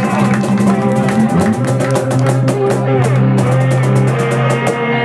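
Live band music: guitar and cajon playing over low held notes, the percussion strikes thinning out toward the end.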